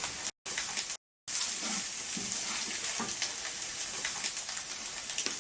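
A person chewing crunchy fried rice: scattered small crunches under a steady hiss, the hard grains the sign of rice cooked without enough water and partly burnt. The sound cuts out twice briefly in the first second or so.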